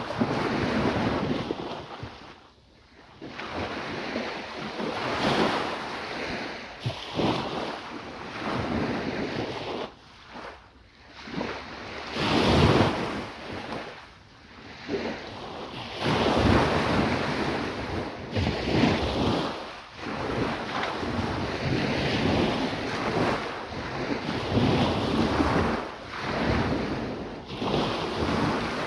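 Surf breaking and washing up the beach in swells every few seconds, with wind buffeting the microphone.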